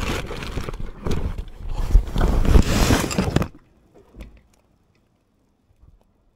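Handling noise on a DJI Osmo Action 3 camera: its housing rubs and knocks against cloth or a hand, a loud rumbling scrape that stops suddenly about three and a half seconds in, followed by a few faint clicks.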